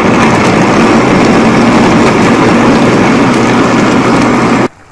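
Electric mixer grinder running at full speed, grinding green chillies: a loud, steady motor whirr that cuts off suddenly near the end when it is switched off.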